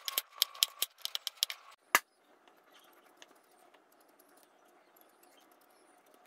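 Kitchen knife chopping carrots on a wooden cutting board: a quick run of knocks, about five a second, for about a second and a half, then one louder knock near two seconds. After that only a faint steady hiss.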